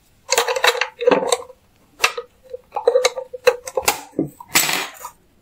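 Hands handling a small plastic mini sewing machine and its thread: a string of small clicks, taps and rustles as the bobbin cover is worked and closed, with a longer, louder scrape near the end.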